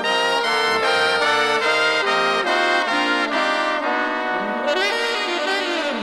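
Orchestral brass section (trumpets, trombones and saxophones) playing a run of held chords in a 1970 easy-listening instrumental, just as the drum kit drops out. In the last second or two the horns slide and waver.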